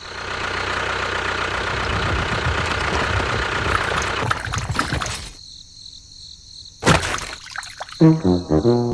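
A small engine-like motor runs steadily for about five seconds, then stops abruptly. After a short, quieter gap with a single sharp click, a stepping, horn-like comic sound effect begins near the end.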